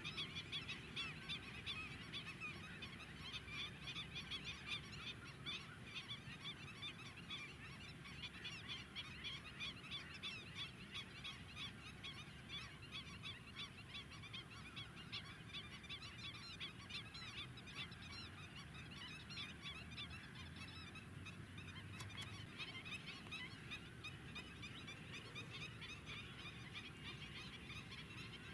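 A flock of greater flamingos calling: a dense chatter of many overlapping goose-like honks, busiest over the first half.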